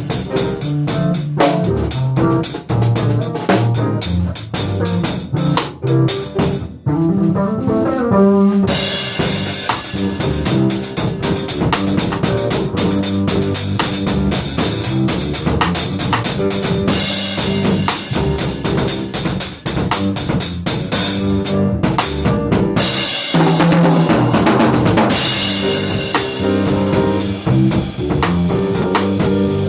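Live funk jam: a drum kit plays a busy, syncopated groove with rimshots and cymbals over an electric bass line. About seven seconds in, the cymbals drop out briefly under a rising run of notes, and later a loud cymbal wash swells for a couple of seconds.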